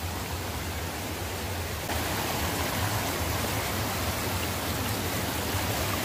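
Shallow mountain stream running over a stony bed, a steady rushing wash of water that grows a little louder about two seconds in.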